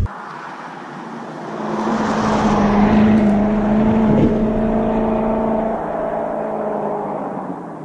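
A car driving past on a road: engine hum and tyre noise growing louder over the first few seconds, then slowly fading away.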